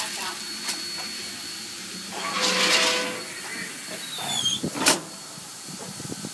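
Stopped steam locomotive giving off a faint steady hiss with a thin high tone, a louder burst of hiss about two and a half seconds in, and a sharp click about five seconds in.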